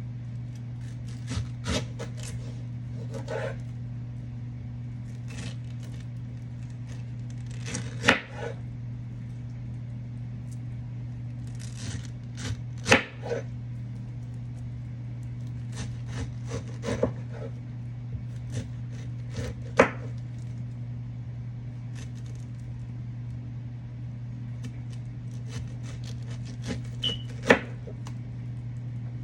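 Knife knocking on a cutting board at irregular intervals, about a dozen sharp strikes spread out with long gaps, over a steady low hum.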